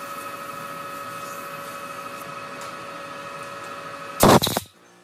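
CNC lathe spindle running with a steady whine while emery cloth polishes the spinning part. About four seconds in, a short loud double blast, compressed air blowing the part off, and the whine cuts off right after.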